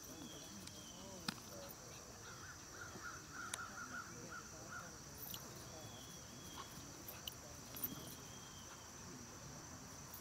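Outdoor insect chorus, a steady high-pitched buzz with repeating chirps. A bird calls a quick run of about ten notes around two to five seconds in, and a few sharp clicks come from the tug play.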